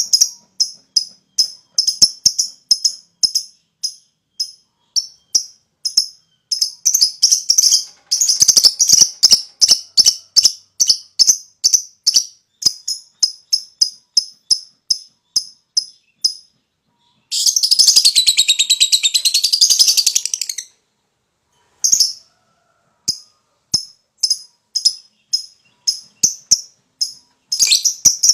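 Lovebird calling in quick series of sharp, high chirps, broken by short pauses, with one unbroken rapid chattering trill (the long 'ngekek') lasting about three seconds midway.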